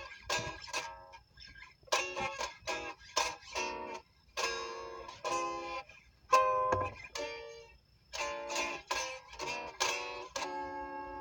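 Guitar played fingerstyle in fast runs of single plucked notes, in short bursts with brief pauses between them, as a fretboard finger exercise.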